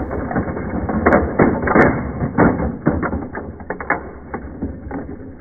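Crash and clatter of a plastic toy car hitting a wall as its body shell and spoiler break off: a dense run of knocks and rattles that thins out over about four seconds.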